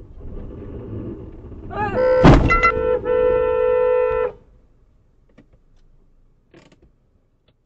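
Car driving on the road, then a short wavering tone and a sharp thump about two seconds in, followed by a car horn sounding steadily for about a second and a half.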